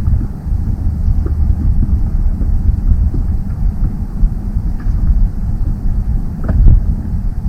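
Wind buffeting the microphone, a steady heavy low rumble, with a few faint knocks.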